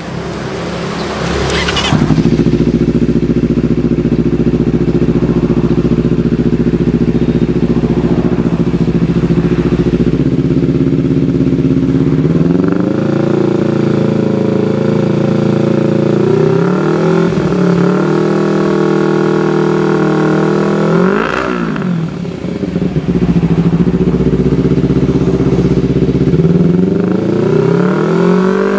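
Honda CBR250RR's parallel-twin engine through an aftermarket Proliner exhaust, revved on the stand. It idles, then is held at raised revs for several seconds. A quick sharp blip comes a little past the middle, and the revs climb again near the end.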